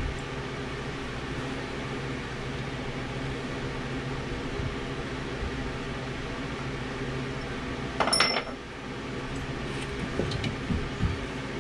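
A steady low mechanical hum, with one sharp metallic clank that rings briefly about eight seconds in, followed by a few light knocks near the end.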